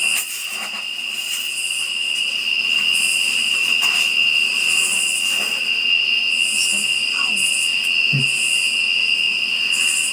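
A steady high-pitched whine, one unbroken tone, with faint murmured voices now and then.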